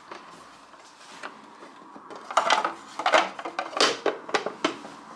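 Hard parts of a vintage sewing machine being handled, with a few faint knocks at first and then a run of sharp, irregular clicks and clatters from about two seconds in.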